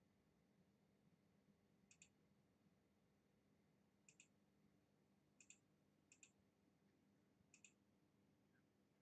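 Near silence with faint computer mouse clicks: five quick double clicks, spaced one to two seconds apart.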